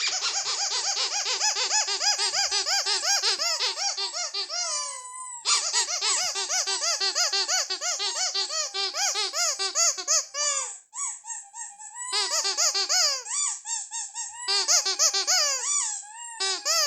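Ledraplastic rubber squeaky toy squeezed over and over in quick runs, about four squeaks a second, each squeak dipping in pitch. The runs break off briefly about five seconds in, and one longer held squeak comes about eleven seconds in.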